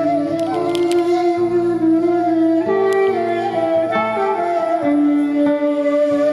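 Instrumental music: a melody of long held notes that glide from pitch to pitch, over steady low notes.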